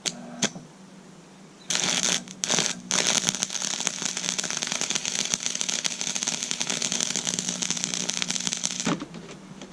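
Stick welding arc crackling as a bead is run. The arc catches about two seconds in, breaks off briefly, then burns steadily for about six seconds before cutting off. Two sharp ticks come just before it starts, and a faint steady low hum runs underneath.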